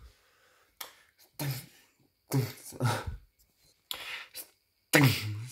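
A person's short, breathy vocal noises close to the microphone, like coughs or throat clearing, in a string of separate bursts with quiet gaps between them.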